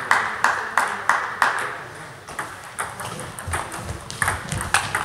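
Table tennis rally: the ball clicking off bats and table about three times a second, each click ringing briefly in the hall, stopping about a second and a half in. After that, fainter, scattered ball clicks from rallies at neighbouring tables.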